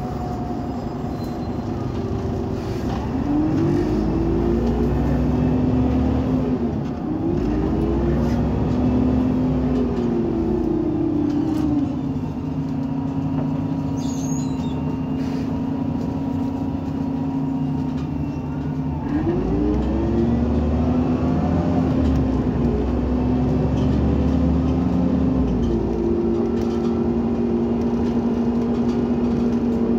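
The Iveco Cursor 8 CNG engine of an Irisbus Citelis 18 articulated natural-gas bus, driving through a Voith automatic gearbox. Its note climbs in pitch and falls back twice as the bus pulls away, holds steady for several seconds, then climbs again twice more.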